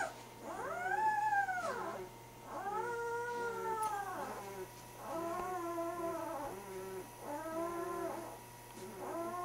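Newborn Great Dane puppy crying: about five drawn-out whining cries in a row, each rising and then falling in pitch, with short pauses between them.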